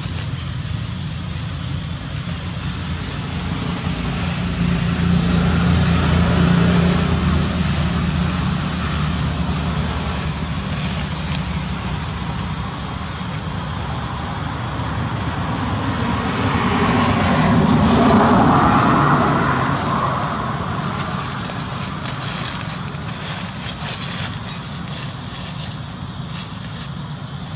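Road traffic: a motor vehicle passing, swelling and fading about five seconds in and again around eighteen seconds, over a steady high hiss.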